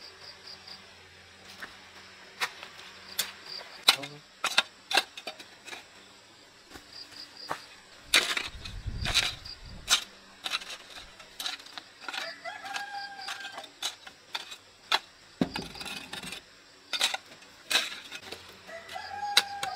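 Irregular sharp knocks and taps, with a heavier dull thump about eight seconds in. A rooster crows briefly about twelve seconds in and again near the end.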